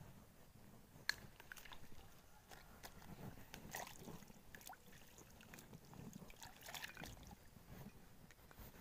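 Near silence: faint outdoor background with scattered small clicks and handling noises, the sharpest click about a second in.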